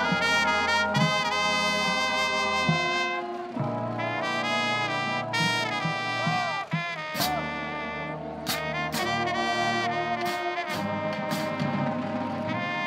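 Marching band brass playing loudly in held chords, with a sousaphone bass line underneath and a few sharp percussion hits in the second half.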